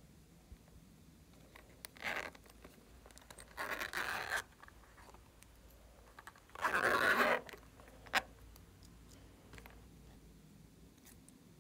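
Close handling of plastic and silicone novelty containers: three short rustling scrapes, the longest and loudest about seven seconds in, then a single sharp click.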